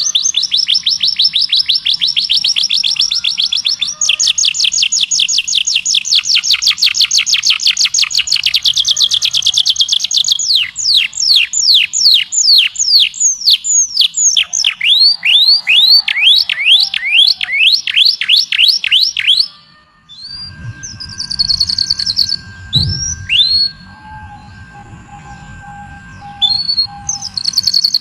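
A songbird singing fast, evenly repeated high notes, then a run of slower downward-sweeping notes about three a second. About two-thirds through it cuts to a quieter recording with a low hum and a steady high tone under a few scattered chirps, and another trill starts near the end.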